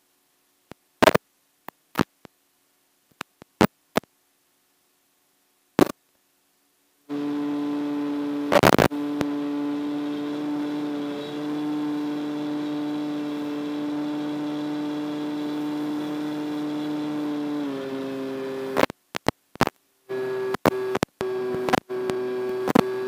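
Electric motor and propeller of an RC plane, heard as a steady whine with overtones that drops in pitch about two-thirds of the way through as the throttle comes back. The sound is silent apart from scattered clicks for the first several seconds and breaks up into clicking dropouts near the end.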